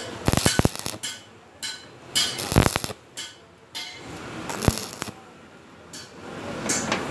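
Stick-welding arc crackling as the electrode runs a bead on thin square tube against a plate, coming in irregular sharp bursts with short quieter gaps between.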